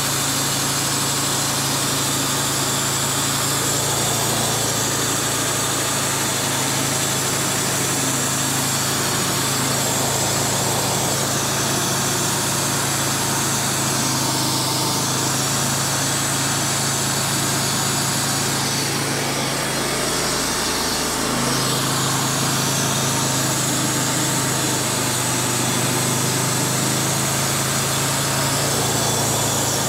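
Wood-Mizer portable bandsaw mill running steadily, its engine driving the band blade through a walnut log.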